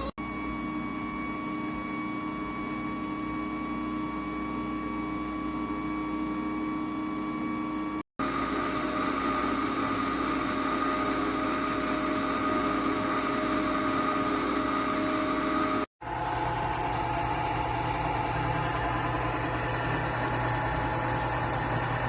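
KUMIO compressor ice cream maker running with a steady mechanical hum, broken by two brief silences about 8 and 16 seconds in.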